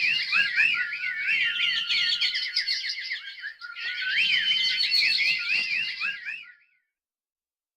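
Several songbirds chirping and singing at once in fast, overlapping, pitch-sliding calls. The calls thin out briefly about three and a half seconds in, then pick up again and stop suddenly about a second before the end.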